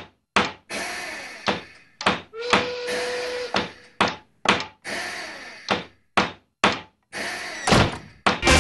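A string of sharp knocks and thuds, mostly about two a second with a few short gaps, each followed by a brief pitched ring. A single tone is held for about a second, starting a little over two seconds in.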